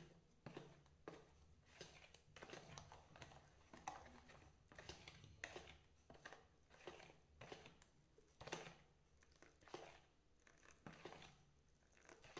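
Faint, repeated scrapes and clicks of a steel spoon stirring thick fermented rice batter in a plastic bowl.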